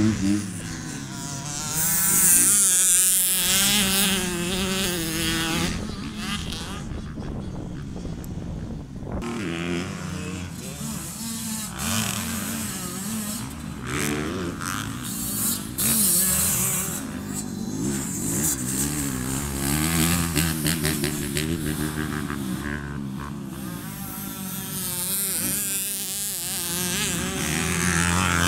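Motocross bikes riding a dirt track, their engines revving up and falling back again and again as the riders open and close the throttle through the jumps and climbs.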